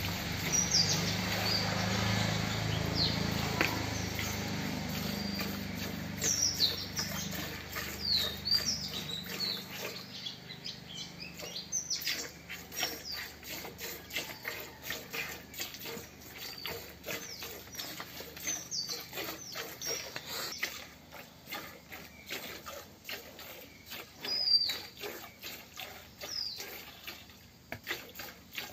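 Milk squirting from a cow's teats into a plastic bucket as she is milked by hand, in a steady rhythm of short hissing strokes. Birds chirp now and then, and a low steady hum stops about nine seconds in.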